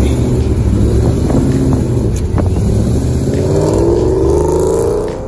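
Car engine running, then revving up with a rising pitch over the last couple of seconds.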